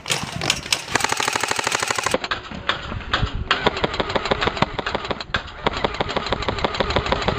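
Airsoft electric rifle firing on full auto: long, rapid, evenly spaced strings of shots with the buzz of the gearbox cycling.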